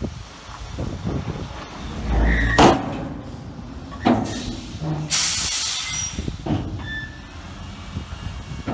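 Heavy machinery running with a low rumble, broken by clanks and knocks, with a loud hiss of released air about five seconds in.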